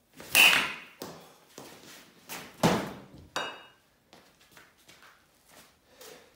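Baseball bat striking a ball off a batting tee: a loud sharp crack with a short metallic ping. Two more loud knocks follow, about two and a half and three and a half seconds in, the second with a brief ring, then fainter scattered taps.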